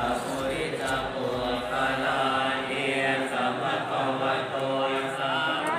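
Several voices chanting a Buddhist blessing together in a steady, sustained monotone.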